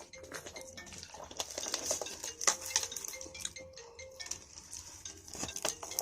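Metal utensils clinking and scraping against dishware in quick, irregular strikes, the sharpest about two and a half seconds in and near the end, over faint background music.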